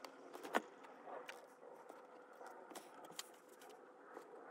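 Quiet room tone with a faint steady hum and a few scattered light clicks, the sharpest about half a second in.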